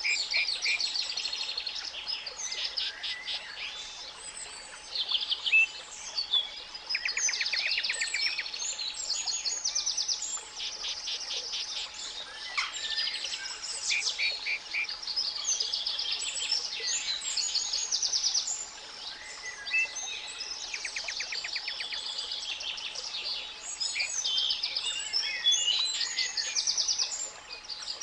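Many songbirds singing at once, a busy chorus of rapid trills and chirps, over a faint steady pure tone at 852 Hz.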